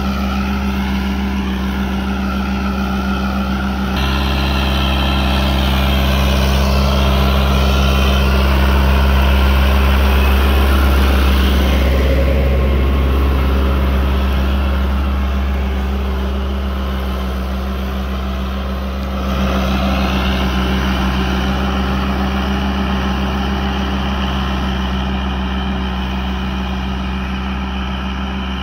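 Fiat 640 DT tractor's diesel engine running steadily under load as it pulls a reversible plough through the soil. It grows louder towards the middle as the tractor passes close by.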